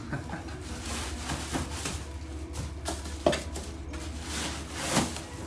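Cardboard packaging being handled: scrapes, rustles and several short knocks as box flaps and cardboard corner guards are pulled away from a plastic-wrapped item, the sharpest knock about three seconds in and another near the end. A steady low hum runs underneath.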